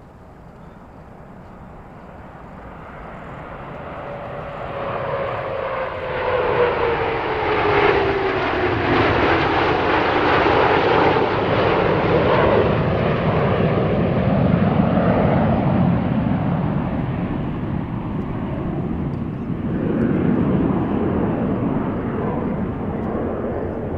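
CT-114 Tutor jets of the Snowbirds flying past, each driven by a single turbojet. The jet noise builds over several seconds, with a whine that falls in pitch as they pass, then stays loud and steady.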